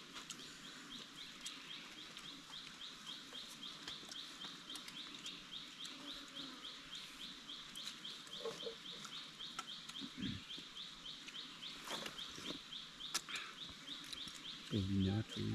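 An animal calling: a high-pitched chirp made of quick, evenly spaced pulses, repeated steadily, several pulses a second.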